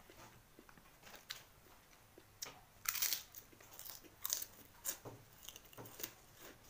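Crunching of kerupuk crackers being bitten and chewed along with rice. A loud cluster of crunches comes about three seconds in, followed by a few more sharp crunches and quieter chewing.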